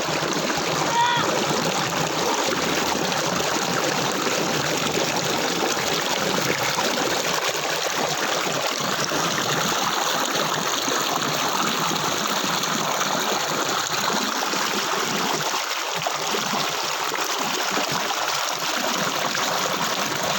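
Small hill waterfall: water pouring and splashing over rocks in a steady rush.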